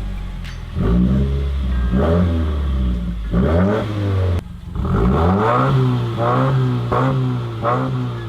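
A 2018 Subaru WRX's turbocharged flat-four engine revving through a newly installed aftermarket exhaust. It gives a series of about seven quick throttle blips, the pitch rising and falling each time, and cuts out briefly about halfway through.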